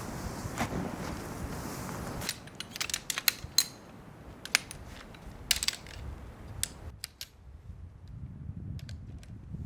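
A steady rushing noise gives way suddenly, a little over two seconds in, to a run of sharp clicks and light knocks from something being handled, which thins out towards the end.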